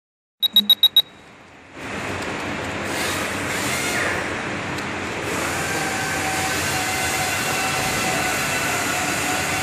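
Five short, high electronic beeps in quick succession, then a steady mechanical din with a few faint held whining tones sets in about two seconds in.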